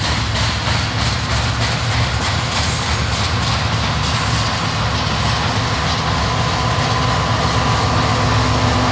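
A train rolling past at close range: a steady rumble with wheel clatter over the rail joints. A thin high tone, likely wheels squealing, creeps in during the second half.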